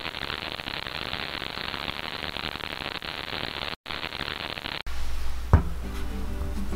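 Crackling static noise, an intro sound effect, with a brief dropout near four seconds. About five seconds in it cuts off and gives way to a low hum and background music of held notes, with one sharp knock shortly after.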